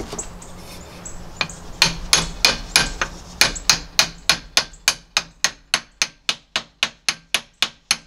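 Hammer tapping on a 1-3/4 inch steel socket set on an LG mini-split blower motor's end plate, driving the new bearing into its seat. One tap about a second and a half in, then a steady run of sharp metallic taps, about four a second.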